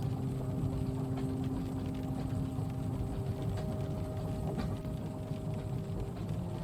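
Night-train carriage ambience: a steady low rumble of the moving train with a faint steady hum, and light scattered taps of rain on the window.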